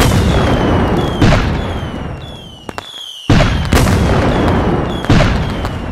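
Fireworks sound effect: four bangs, each followed by crackling and a short falling whistle, with a brief lull midway.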